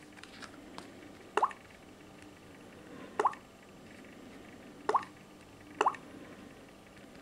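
Samsung Galaxy S4 mini touch sounds: four short water-drop blips, spaced a second or two apart, as its touchscreen is tapped through the settings menu. A few faint clicks near the start come from the phone being handled.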